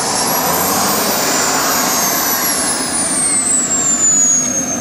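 Engines of a radio-controlled A-10 Warthog model jet running: a high whine that climbs in pitch and then falls away again, over a steady rushing hiss.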